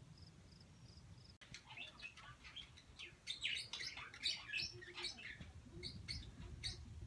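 Faint, quick high-pitched bird chirps, many short notes close together, starting about a second and a half in.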